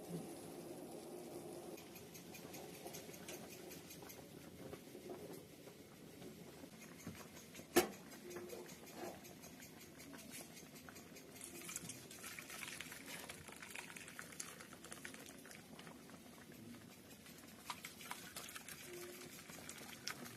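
Herbs and water simmering in a pot for herbal tea: a faint, steady bubbling and pattering. A single sharp click comes about eight seconds in.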